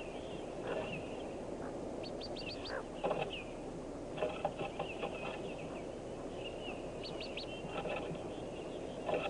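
Hooded merganser ducklings peeping inside a wooden nest box, with many short high calls and quick runs of higher peeps about two seconds in and again near seven seconds, mixed with a few scratches and knocks.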